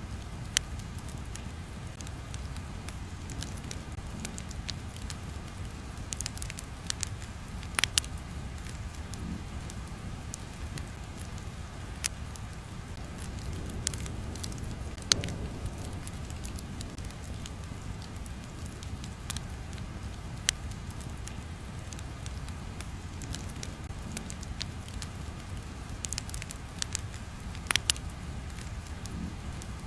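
Crackling fire ambience: a steady low rumble with scattered, irregular sharp pops.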